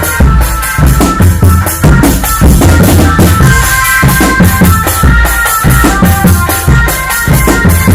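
Drumband music: rapid drum strokes with a deep bass-drum beat under a held, high melody line, played loud and without a break.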